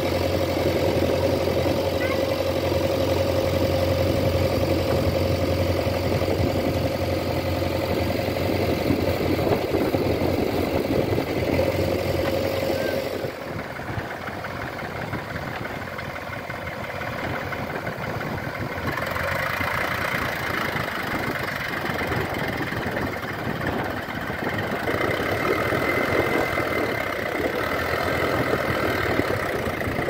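Diesel engines of a JCB 3DX backhoe loader and an Eicher tractor running steadily at idle. About 13 seconds in, the sound changes suddenly to a quieter, more distant engine note, and a higher whine joins it about 19 seconds in.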